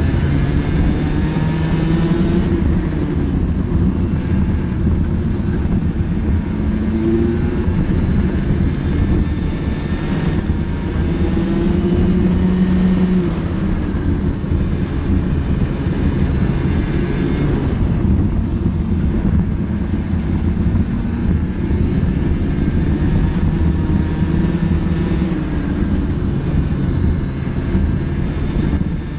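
Racing kart engine at race pace, heard from a camera mounted on the kart, its note rising and falling again and again as the throttle opens and closes through the corners.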